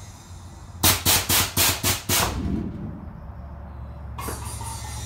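Air-ride suspension valves on a 1967–72 Chevy C10 being pulsed: six quick bursts of hissing air, about four a second, as the truck rises on its air bags. A sharp click follows near the end, then a low steady hum.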